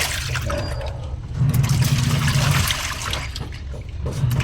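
Sharp automatic washing machine running with water, the water churning and sloshing while the motor hums in short bursts of about a second: the machine working again after repair.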